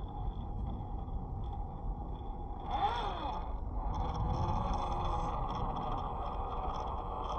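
Radio-controlled rock crawler's electric motor and gear drive whining as the truck climbs over rock; the whine rises and falls briefly about three seconds in, then runs steadier and louder in the second half.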